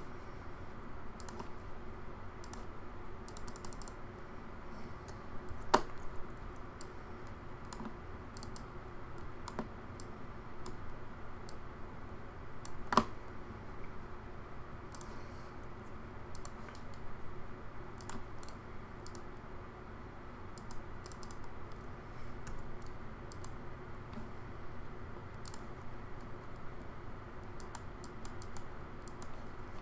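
Computer keyboard and mouse clicks, tapped irregularly while working at a computer, with two sharper clicks about six and thirteen seconds in, over a faint steady hum.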